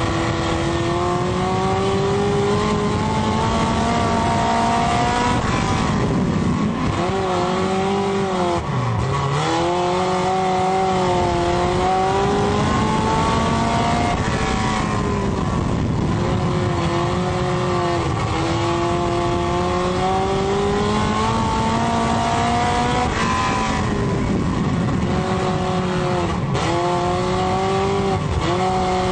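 A dirt-track race car's engine running hard, heard from inside the cockpit. Its note climbs slowly in pitch, then dips sharply several times as the throttle comes off and back on through the laps.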